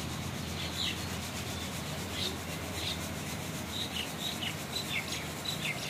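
A stream of sesame seeds poured in front of an electric pedestal fan, giving a steady rushing hiss over the fan's low hum as the fan winnows the fine chaff out of the seed. Birds chirp now and then in short falling chirps, more often in the second half.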